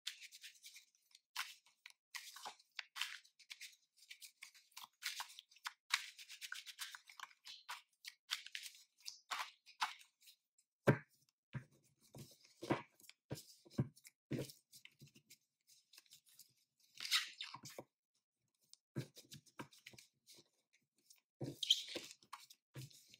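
A deck of tarot cards shuffled by hand: irregular papery rustles and flicks of the cards sliding over one another, with a few soft low knocks in the second half.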